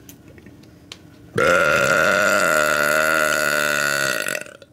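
A woman's long, loud belch, one continuous burp held for about three seconds, starting about a second and a half in and cutting off near the end.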